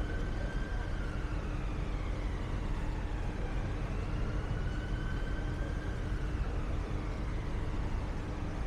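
City street traffic noise with a siren wailing slowly up and down, about two rises and falls, over a steady low hum.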